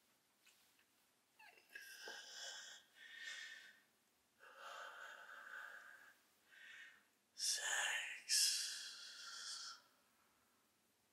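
A man's heavy, breathy gasps and sighs, about six in a row with short pauses between them. The loudest two come about seven and a half seconds in.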